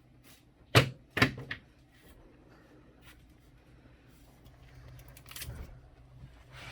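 Two sharp clacks about half a second apart, then lighter clicks and a soft clatter near the end: tools and parts being handled during electrical work, over a faint steady hum.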